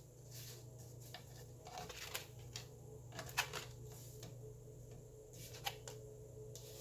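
Tarot cards being pulled and laid out: faint, irregular snaps and slides of card stock, over a low steady hum.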